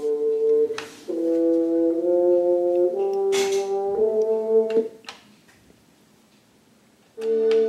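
Music from the Panasonic flip clock radio's speaker: brass-like held chords that change about once a second. The music breaks off for about two seconds, then a new held chord starts near the end.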